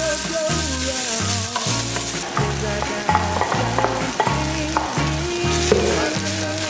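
Food sizzling in a hot pan as it is stir-fried, with a few sharp clicks of the utensil against the pan, over background music with a steady bass line.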